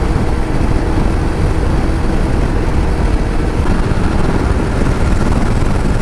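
Motorcycle on the move, its engine a faint steady drone under heavy wind noise on the microphone.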